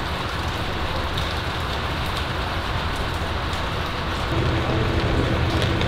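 Steady rain falling, an even hiss of drops. About four seconds in, a low steady hum joins it.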